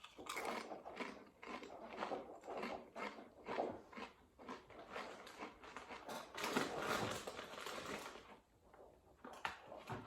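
A person chewing crisps close to the microphone: a rapid, irregular run of crunches that dies away about eight and a half seconds in, with a couple more crunches near the end.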